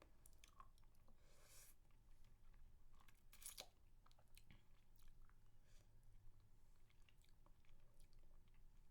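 Faint, close-miked mouth sounds of eating a spicy mango lollipop: scattered wet clicks and licking, with crunches on the candy, the loudest about three and a half seconds in.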